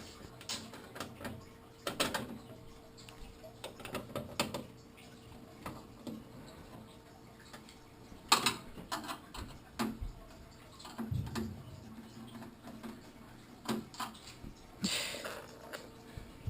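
Irregular clicks, taps and knocks of computer case parts and screws being handled, with one sharper knock about halfway through and a brief scrape near the end.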